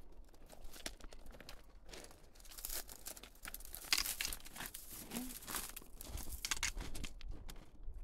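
Footsteps crunching on a dirt trail, an irregular run of sharp crunches.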